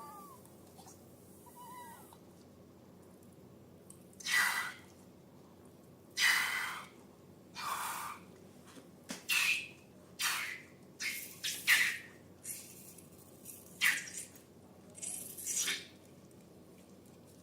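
Slime being squeezed and pulled by hand, giving about a dozen short, wet squelching bursts with a slight squeak, coming irregularly a second or so apart.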